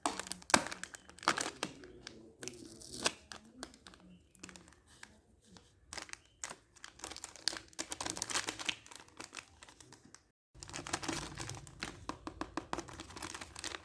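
Packaging being handled and unwrapped by hand: irregular crinkling and tearing. It breaks off completely for a moment about ten seconds in, then resumes.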